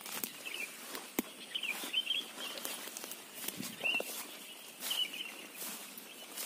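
Footsteps and rustling through leafy undergrowth, with a sharp click about a second in. Small birds chirp in short bursts about once a second.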